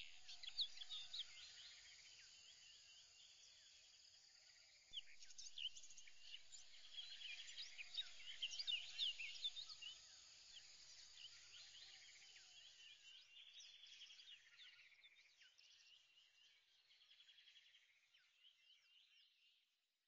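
Faint outdoor bird chorus of many short, high chirps, getting louder about five seconds in and fading out near the end.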